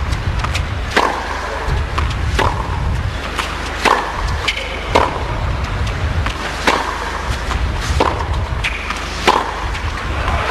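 Tennis ball struck back and forth with rackets in a baseline rally, a crisp pop every one to one and a half seconds, over a steady low background hum.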